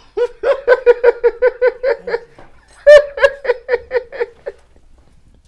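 A man laughing loudly in two long runs of quick 'ha-ha-ha' pulses, about five a second, with a short breath between them.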